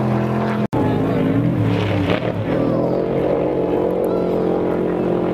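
Off-road race vehicle engines running hard, their pitch rising and falling with the throttle, with a brief sudden break in the sound under a second in.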